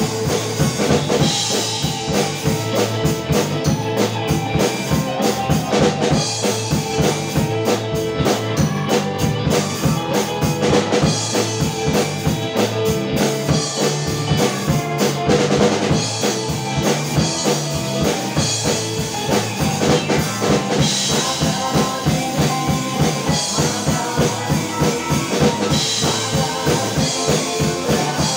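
Acoustic drum kit played in a steady rock beat, with kick drum, snare and cymbals, and a cymbal crash roughly every five seconds. It is played along to a recorded rock song, whose pitched instruments sound underneath the drums.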